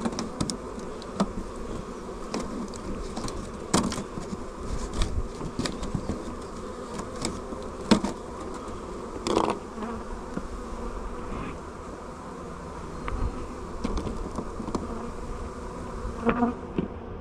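Many honey bees buzzing steadily around an open hive, with a few sharp knocks and clicks, the loudest about halfway through.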